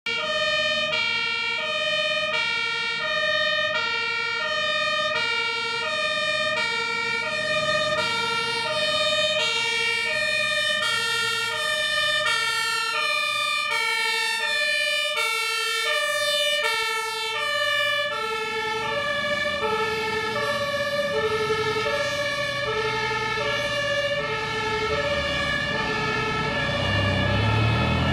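German fire engines' two-tone Martinshorn siren, alternating high and low tones in a steady cycle a little over a second long. Around two-thirds of the way through, the pitch drops slightly as a vehicle passes. A vehicle engine rumbles in under it near the end.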